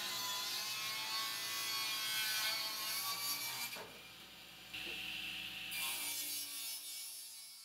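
Table saw ripping walnut boards into strips: the blade's steady whine over the noise of the wood being cut. It dips partway through, when one cut gives way to the next, and fades out near the end.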